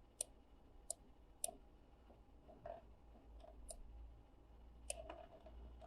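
Faint computer mouse clicks, about six scattered singly across a few seconds, with near silence between them.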